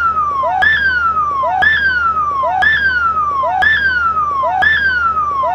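A siren-like sound effect: a whistling tone that starts with a click, jumps up and glides down, repeated about once a second, six times in a row.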